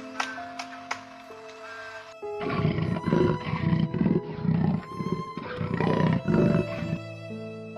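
Big cat growling in a run of noisy, pulsing breaths, about two or three a second. It starts about two seconds in and cuts off sharply about seven seconds in, over soft background music.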